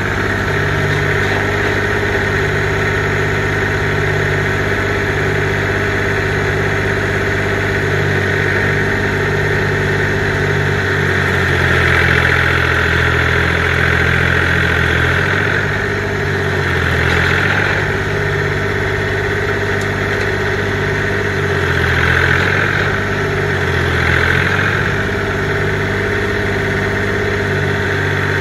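Kubota compact tractor's diesel engine running steadily, swelling louder a few times around the middle and near the end.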